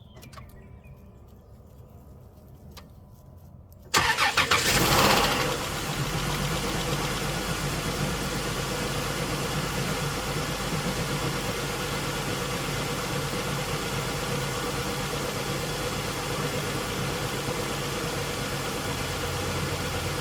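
A few faint clicks, then about four seconds in the 2003 Dodge Intrepid's V6 cranks briefly on its new battery and catches. It then idles steadily, stumbling a little with a misfire.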